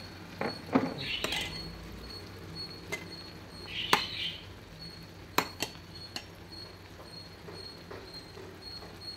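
A metal ladle knocking and clinking against a stainless steel pot several times as a fried pastry is dipped in and lifted out of the bubbling liquid, with short splashy stirring noises.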